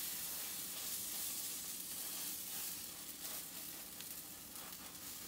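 Pancake batter sizzling in oil in a cast-iron skillet, right after a pancake is flipped so its wet side lands on the hot pan. The sizzle starts loud and slowly dies down, with a few faint ticks a few seconds in.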